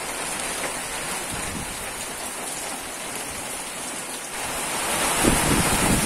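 Heavy rain falling on a corrugated veranda roof and the garden: a steady hiss that swells louder and deeper near the end.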